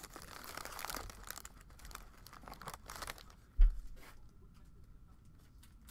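Clear plastic wrapping crinkling and rustling as it is handled with trading cards. A single low thump a little over halfway through, the loudest sound.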